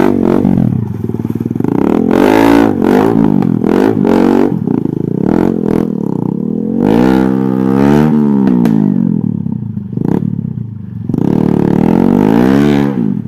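Single-cylinder four-stroke Honda XR trail motorcycle engine revving up and down repeatedly as the rider works the throttle up a rutted dirt climb, easing off briefly about three-quarters of the way through before revving again.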